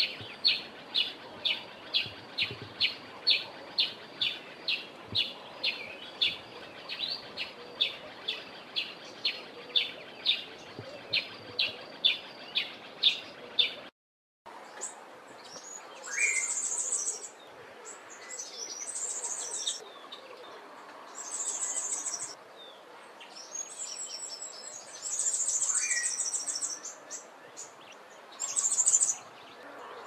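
Southern grey-headed sparrow giving a steady series of short chirps, about two to three a second. After a brief gap, a southern double-collared sunbird sings in several short bursts of rapid, very high twittering.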